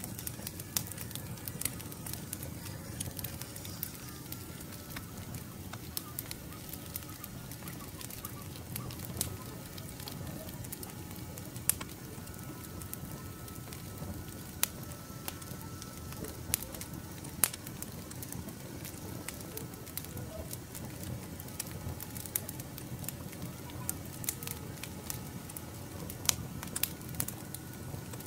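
Wood fire crackling, with irregular sharp pops over a steady low rumble.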